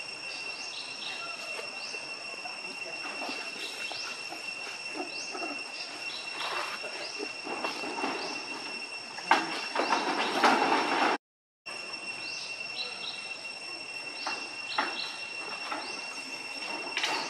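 Steady high-pitched insect drone with many short chirps over it. About nine seconds in, a louder, rough burst of sound lasts nearly two seconds, then everything cuts out for about half a second before the drone resumes.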